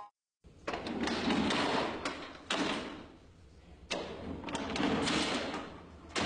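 Wooden drawers and compartments of an antique marquetry cabinet sliding open after the key is turned in its lock. About four knocks, each followed by a sliding rush of wood that fades over about a second.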